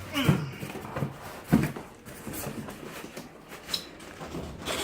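Cardboard monitor box and its packaging being pulled and handled: scattered knocks and scrapes at irregular intervals.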